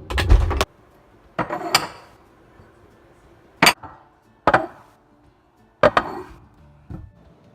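A run of about six separate knocks and clatters of hard kitchen objects being handled and set down during a clean-up. The first, right at the start, is the loudest and heaviest, and the others come a second or so apart, each ringing briefly.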